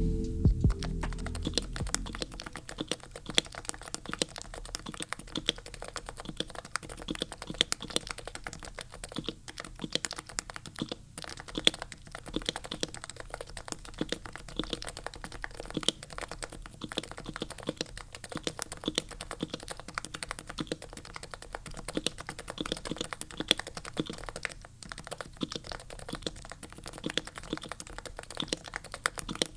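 Continuous fast typing on a Topre keyboard: Leopold FC980C 45 g electrocapacitive switches, Krytox-lubed and fitted with silencing rings, in a heavy Norbauer Heavy-9 case. The keystrokes come several a second with no let-up. A short musical tail fades out in the first second.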